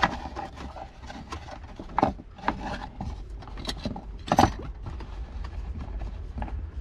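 Hands rummaging through tools in a pickup's plastic centre console and cup holder, hunting for a small bolt: irregular clicks and knocks of metal tools against plastic. The loudest knocks come about two seconds in and again just past four seconds.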